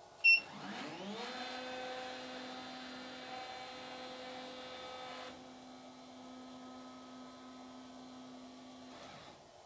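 A DIY laser cutter's stepper-motor-driven X/Y gantry moving the laser head. A short, loud beep comes first. Then a motor whine rises in pitch as the axes speed up and holds steady. About halfway through the higher whine stops, and a lower steady hum carries on until shortly before the end.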